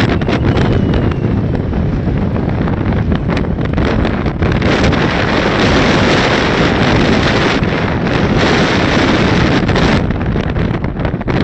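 Wind buffeting the camera's microphone in loud, uneven gusts, heaviest from about four seconds in until near the end.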